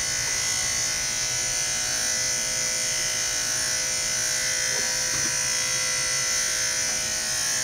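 Electric dog grooming clippers running with a steady motor hum and high buzz.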